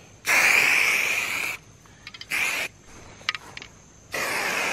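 Aerosol can of marking paint spraying onto grass in separate hisses: one long spray of over a second, a short one in the middle, and another starting near the end, with a few faint ticks between.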